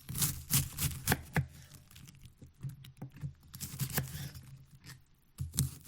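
A knife slicing through white cabbage onto a wooden cutting board. It makes a series of crisp crunching cuts, some in quick runs and some spaced apart, with short pauses between.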